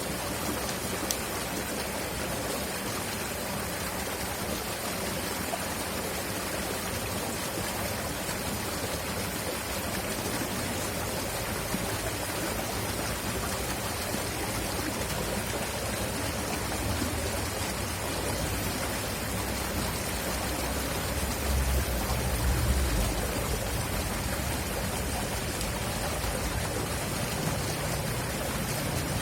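River water rushing steadily. A low rumble swells briefly about three quarters of the way through.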